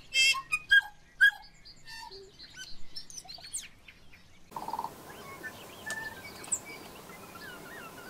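Tui singing: a quick run of varied clicks, chirps and short whistled notes, then after about four and a half seconds a fainter stretch of thin whistles and chirps over a steady hiss.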